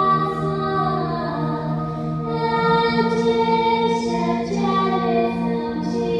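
Music: slow singing in long held notes, sliding between some of them, over a steady low drone.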